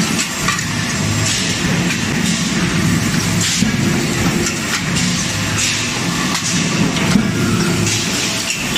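Hot-forging line machinery running: a steady low mechanical hum with occasional short hisses.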